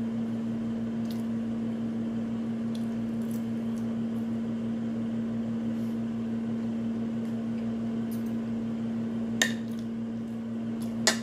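A steady hum with quiet mouth-eating sounds. A few light clicks of a fork against a plate come through, the sharpest about nine seconds in and again just before the end.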